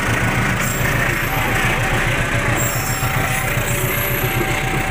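CC 206 diesel-electric locomotive passing close by with a steady low engine drone, followed by its passenger coaches, their wheels rumbling over the rails.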